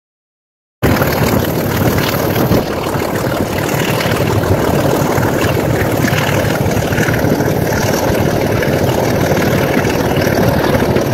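Diesel-hauled passenger train running at speed, heard from an open carriage window: a loud, steady rumble of running noise and rushing air that starts abruptly about a second in.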